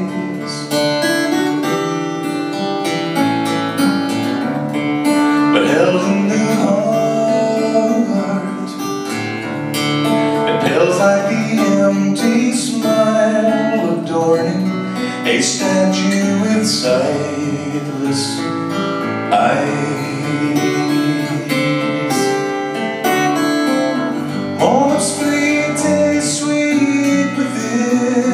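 A man singing while playing an acoustic guitar, a continuous song with no break.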